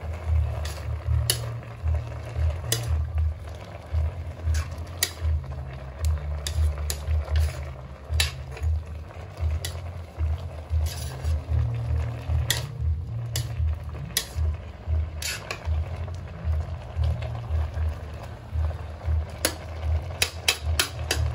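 A metal spoon stirring and turning yardlong beans in an aluminium wok, with irregular scraping clicks against the pan over a low rumble.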